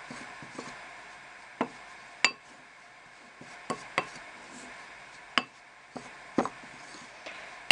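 Spoon knocking and scraping against a bowl while mixing a stiff dough of honey, mustard, oil and flour: sharp, irregular clinks about a second apart.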